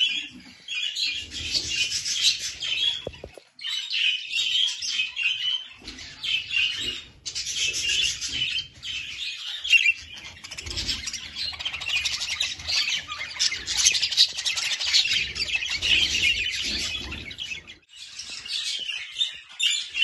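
Budgerigars chirping and chattering in a dense, continuous warble, broken by a few short, sudden gaps.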